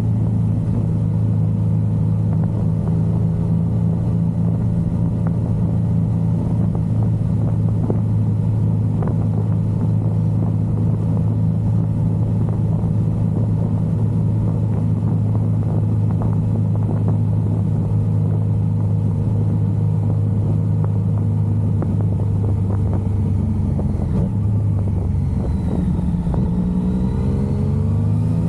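Yamaha XSR900's inline-three engine running at a steady cruise. Near the end its note dips, then climbs as the bike accelerates.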